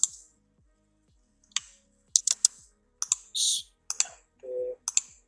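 Computer mouse clicks and keyboard keystrokes: about eight sharp separate clicks, some in quick pairs, with a short hiss a little after three seconds and a brief low hum about four and a half seconds in.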